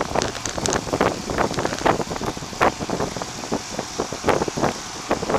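Wind buffeting the microphone of a bicycle-mounted camera while riding, with many irregular knocks and rattles from the bike going over the paved path.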